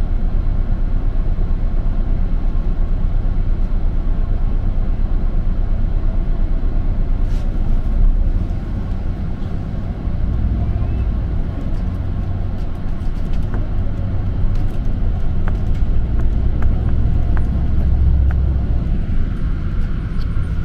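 Inside a city bus: the engine rumbles steadily at idle while the bus waits at a signal, then the sound changes about eight seconds in as the bus pulls away, with a few light ticks later on.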